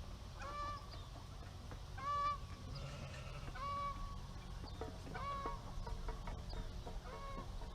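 Domestic farm fowl calling: five short, repeated calls, evenly spaced about a second and a half apart.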